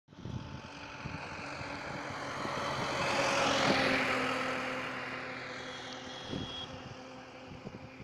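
A vehicle passing by: its noise builds to a peak about halfway through, then slowly fades away.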